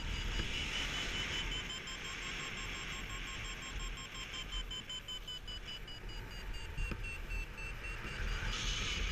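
Paragliding variometer beeping in a quick, even run of high beeps, the pitch sagging a little and rising again near the end: the climb tone that signals rising air. Wind rumbles on the microphone underneath.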